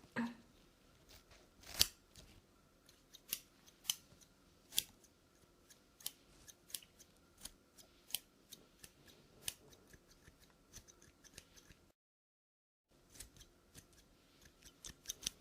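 Scissors snipping through the hair of a wig close to the microphone in crisp, irregular cuts, about one or two a second. The sound drops out completely for about a second near the end.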